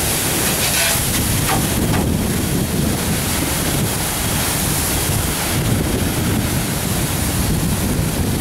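Steady rushing noise of a pressurized kerosene fire and the firefighting hose stream spraying into it, with wind buffeting the microphone.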